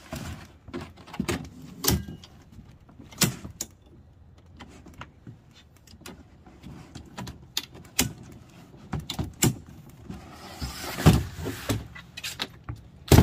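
Plastic folding table with metal legs being set up: scattered clicks and knocks as the legs are swung out and locked, then rustling, scraping and knocks as the table is tipped over, ending in a sharp, louder knock.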